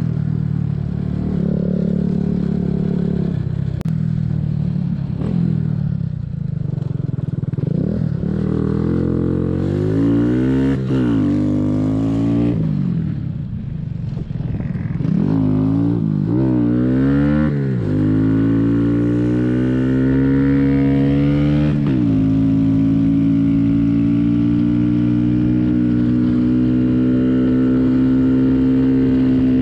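Mini bike's small single-cylinder engine under way, rising in pitch several times as it accelerates and shifts up, then holding one steady pitch at cruising speed for the last third.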